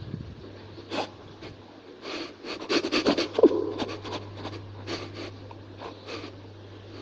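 Rubbing and scratching handling noises, a run of short scrapes and clicks that is busiest in the middle, over a steady low hum.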